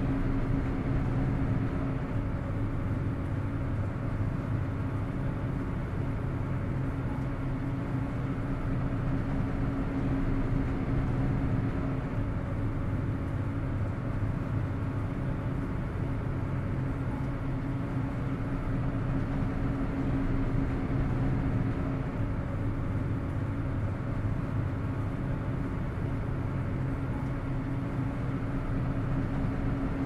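A ferry's engines running: a steady low drone with a constant hum over it, unchanging throughout.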